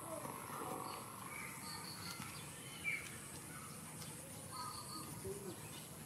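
Faint outdoor ambience: scattered short bird chirps, one slightly louder about three seconds in, over a steady high-pitched hum.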